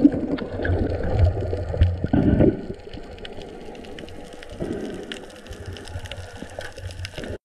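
Water sloshing and gurgling with scattered small clicks, louder for the first two and a half seconds and quieter after. It cuts off suddenly near the end.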